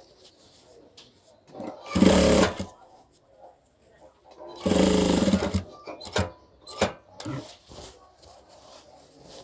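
Industrial sewing machine running in two short bursts, each about a second long, stitching a box pocket onto fabric. Light clicks and knocks of cloth being handled follow.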